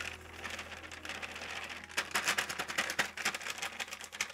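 Dextrose brewing sugar pouring out of a plastic bag into a stainless steel pot, with the bag crinkling: a rapid crackly ticking hiss that gets busier about two seconds in.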